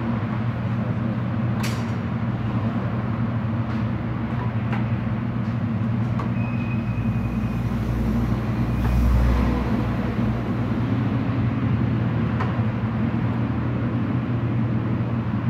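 A steady low motor hum, with a few light clicks and a brief swell of deeper rumble about nine seconds in.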